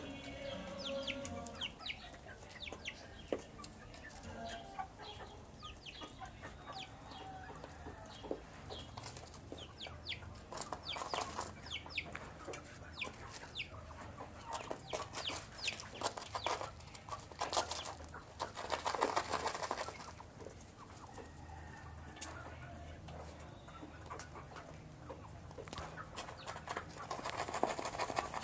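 Young chickens clucking and cheeping while they feed, with many quick, sharp taps of beaks pecking at feed.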